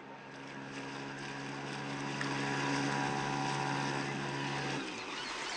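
Small outboard motor on a rowboat catching after a pull on its starter cord and running with a steady hum, then cutting out abruptly near the end.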